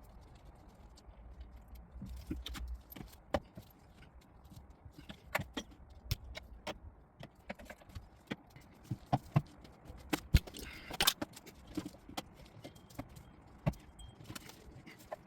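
Irregular metallic clinks and knocks of hand tools and loose motorcycle parts being handled, the loudest knock about ten seconds in. A brief low rumble comes around two seconds in.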